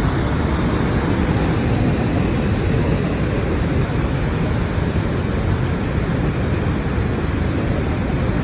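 Steady rush of water from Niagara's Horseshoe Falls and the churning basin below, an even noise heaviest in the low end.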